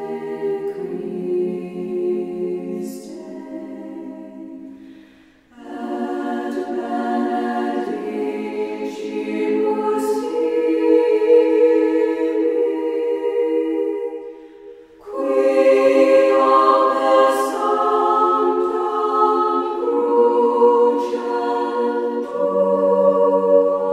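Choir singing unaccompanied, in three long phrases of held notes that move slowly from chord to chord, with a short break about five seconds in and another about fifteen seconds in.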